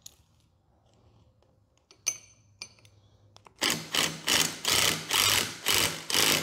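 A couple of metal clinks as a steel gear puller is set on the compressor's clutch pulley, then from a little past halfway a Ryobi cordless impact driver hammering in short repeated bursts, about two to three a second, turning the puller's forcing screw to draw the clutch hub off a seized A/C compressor.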